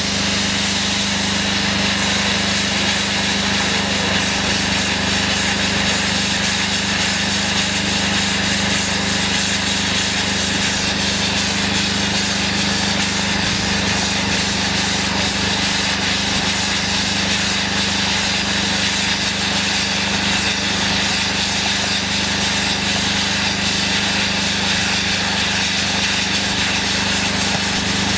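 Firework fountains (gerbs) on ground set pieces hissing in one steady, unbroken rush of spraying sparks, with a low steady hum beneath and no bangs.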